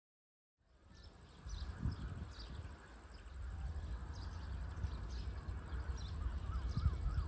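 Outdoor trackside ambience that begins after a brief silence: birds chirping and calling repeatedly, a steady high-pitched thin tone, and an uneven low rumble.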